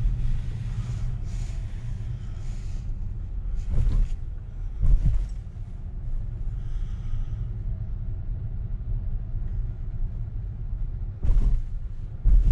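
Low, steady road and tyre rumble heard inside the cabin of an electric Tesla Model S Plaid rolling slowly, with a few dull thumps about four and five seconds in and twice near the end.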